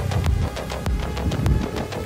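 Electronic background music with a steady beat and deep bass thumps.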